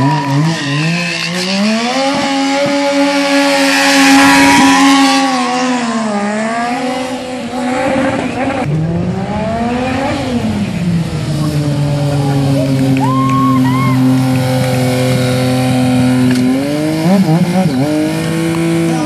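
Stunt motorcycle engine revving: the pitch swings up and down, climbs to a peak about ten seconds in, drops, then holds steady at high revs for several seconds. A rush of tyre noise rises under it a few seconds in.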